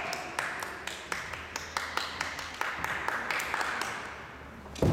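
Scattered light clacks and taps from a kendo bout: bamboo shinai touching and feet on a wooden floor, thinning out and fading before a single loud thump near the end.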